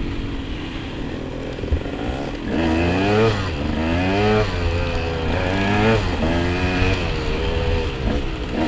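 Dirt bike engine heard on board the bike, running steadily for about two seconds and then revving up and easing off about five times as the rider works the throttle and gears along the trail.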